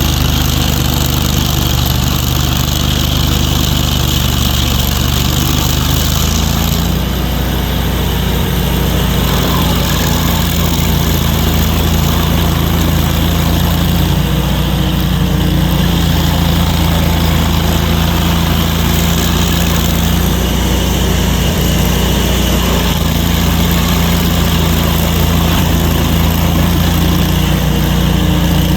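An engine running steadily throughout, its tone shifting slightly about seven seconds in.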